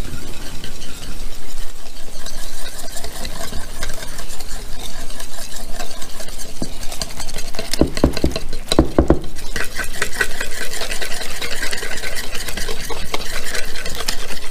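Wire whisk beating a beer, egg and flour batter in a ceramic bowl: a fast, steady clatter and scrape of the wires against the bowl, with a few heavy thumps a little past the middle.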